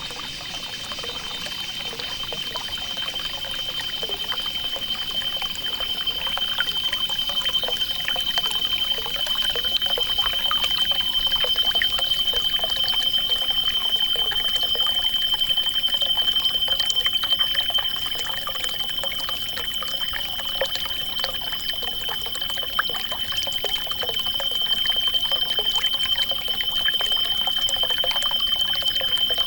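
Water trickling and pouring in a small natural stream, full of little splashes and gurgles, under a steady high-pitched tone.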